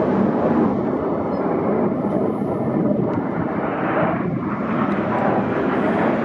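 Jet noise from an RAAF EA-18G Growler's twin turbofan engines as it flies over, a steady loud rumble that brightens about four seconds in.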